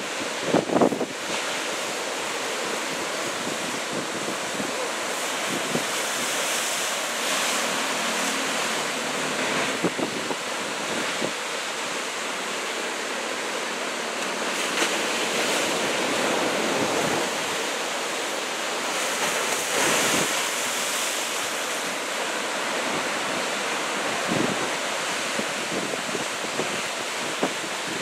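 Heavy surf from a typhoon swell breaking offshore: a steady, even rush of wave noise, with wind buffeting the microphone in a few short low thumps.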